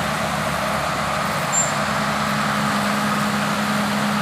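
Bulldozer's diesel engine running at a steady pitch, with a brief high squeak about a second and a half in.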